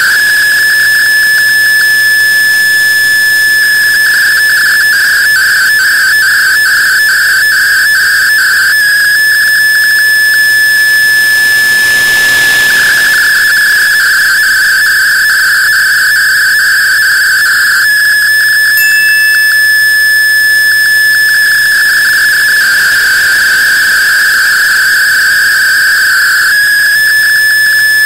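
Shortwave MFSK32 digital picture transmission heard through an AM receiver: a shrill, whistle-like tone near the top of the voice range. It holds steady in some stretches and flickers rapidly in others as the image data is sent, over a background of radio hiss.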